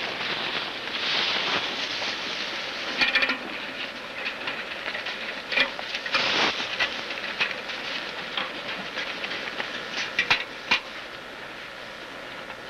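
Close rustling and scraping of gloved hands working at a wire fence, with a handful of sharp clicks and snaps: a cluster about three seconds in and more near ten seconds. A steady tape hiss lies under it all.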